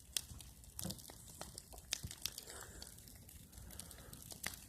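Faint, irregular crackling and ticking from a fire burning aerosol cans.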